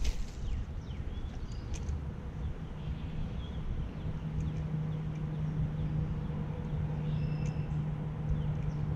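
A short sharp swish right at the start as a fishing rod is cast. Then a steady low hum with a constant low tone, stronger from about four seconds in, and scattered faint bird chirps.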